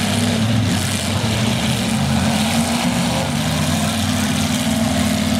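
Engines of full-size demolition derby pickup trucks running steadily.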